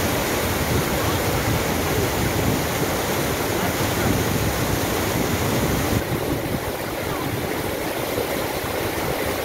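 Fast-flowing river water rushing and churning around people standing in it: a steady, loud rushing noise that eases slightly about six seconds in.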